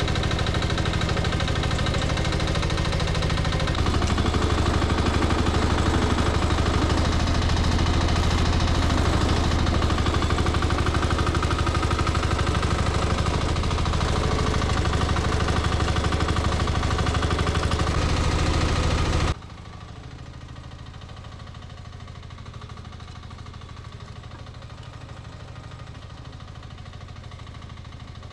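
A 1-ton mini excavator's small engine running steadily under work, a little louder from about four seconds in. About two-thirds of the way through it drops abruptly to a quieter, duller engine hum.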